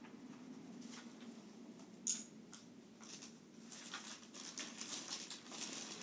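Faint taps and light rubbing of a fingertip or stylus on a tablet touchscreen while drawing, with one sharper tap about two seconds in and a cluster of small taps near the end.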